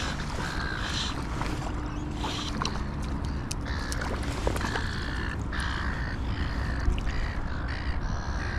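Steady low rumble of wind on the microphone, with a bird giving short calls again and again and a few light clicks.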